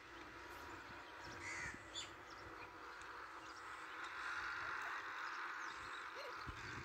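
Faint bird calls, with a short sharp high chirp about two seconds in.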